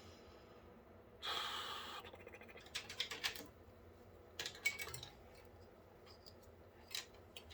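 A brief rustle, then several quick runs of light plastic clicks and rattles as cables and parts are handled inside a PC case.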